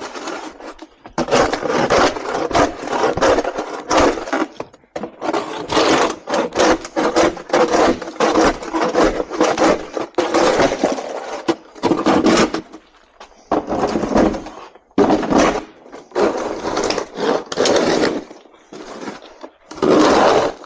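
Snow shovel scraping along the ground through packed snow in repeated strokes, some under a second and some several seconds long, with short pauses between them.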